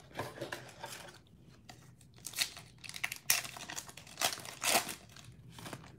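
Foil wrapper of a Panini Prizm basketball card pack being torn open and crinkled by hand, in irregular crackles with louder rips about two, three and nearly five seconds in.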